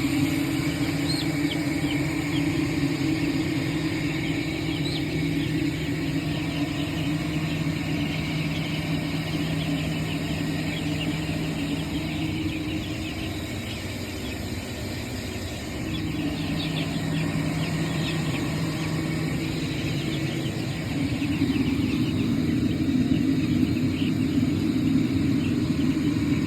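Many young chicks peeping over a steady low machine hum. The hum dips briefly a little past the middle and is louder for the last few seconds.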